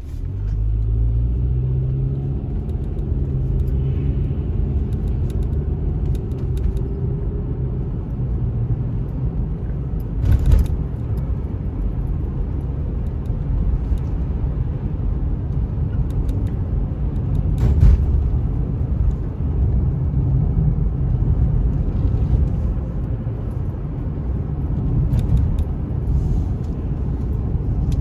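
Car engine and road rumble heard from inside the cabin as the car pulls away from a standstill, the engine note climbing in steps over the first several seconds and then settling into steady cruising rumble. Two short sharp knocks stand out, about ten and eighteen seconds in.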